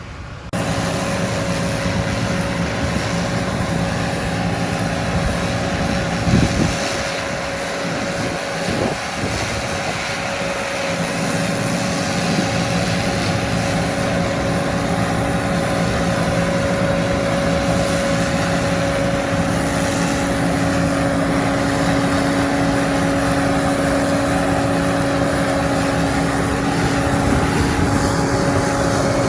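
Machinery running steadily: a continuous mechanical hum and whir with a steady whine, starting abruptly about half a second in.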